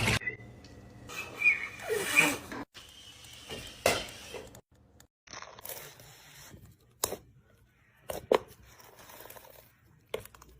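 Orbeez water beads squeezed and squished by hand: irregular crunching and scraping handling noise with a few sharp cracks, broken by short silent gaps.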